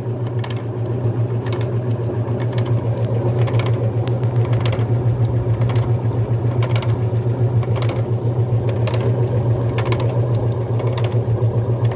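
Brastemp Luxo Plus washing machine on its spin cycle: a steady motor hum that throbs quickly in level, with light knocks here and there. The noise comes from the missing rubber on the tub, with something loose rattling.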